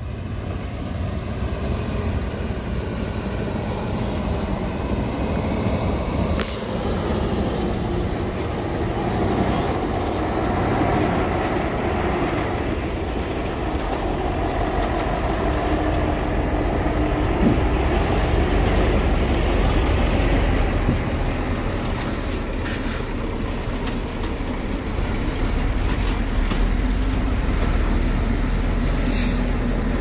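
Heavy-equipment diesel engine running steadily under work, with a brief high-pitched squeak near the end.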